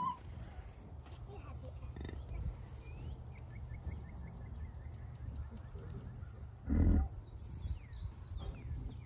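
An American bison cow gives one short, deep grunt about seven seconds in. She is a new mother, calling a lot around her calf. A steady low rumble runs underneath.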